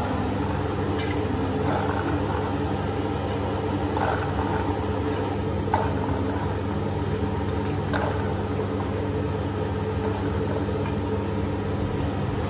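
A steady mechanical hum with a few light clicks and taps as green peas are scooped from a steel bowl and dropped into an aluminium pressure cooker.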